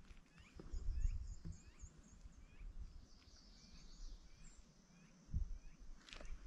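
Songbirds singing in a quiet woodland: a quick run of high, thin notes, shorter chirps repeated about twice a second, and a high buzzy trill in the middle. A soft thump comes about five seconds in.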